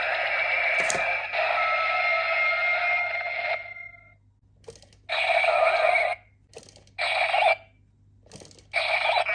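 Bootleg Kamen Rider Kiva DX Saga belt toy playing electronic sound effects through its small, tinny speaker. One continuous effect stops about three and a half seconds in, then three short bursts follow, with faint button clicks between them.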